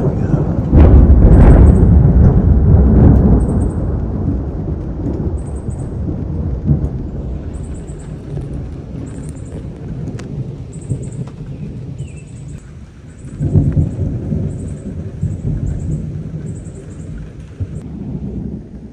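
Rolling thunder: a loud, deep rumble breaks about a second in and slowly rolls away over several seconds, then a second, weaker rumble swells up about two-thirds of the way through.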